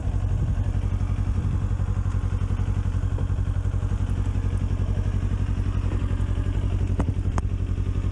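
Kawasaki Ninja sport bike's engine idling steadily with an even low pulse, with a couple of sharp clicks about seven seconds in.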